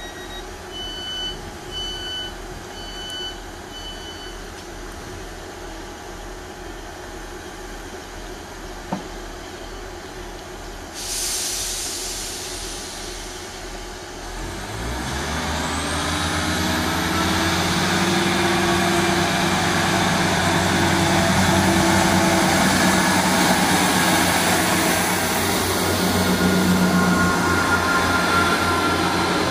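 Class 158 diesel multiple unit departing a station. Near the start, door-closing warning beeps sound about once a second. A hiss of air follows as the brakes release, then the underfloor diesel engines power up with a rising whine and run steady and loud as the train pulls past.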